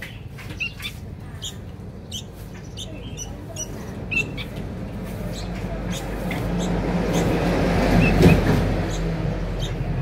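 Sooty-headed bulbul chicks giving short, high begging chirps. A passing motor vehicle swells up from about halfway through, is loudest near the end and then fades.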